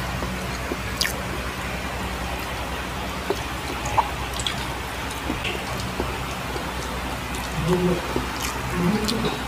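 Two people eating by hand: scattered soft wet smacks and clicks of chewing and lips over a steady low hum, with two brief low murmurs near the end.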